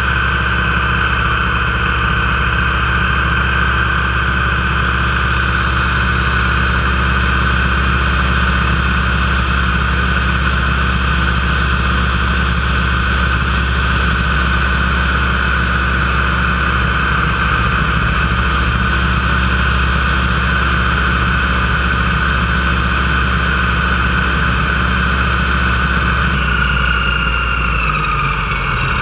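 Nanchang CJ-6A's nine-cylinder radial engine and propeller droning steadily, heard inside the cockpit in flight. Near the end the sound changes abruptly and the engine note falls.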